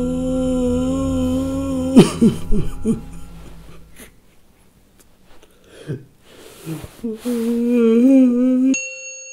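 Man crying hard: a long held wailing cry, then sobbing gasps and sniffles, then another wavering wail that cuts off abruptly near the end.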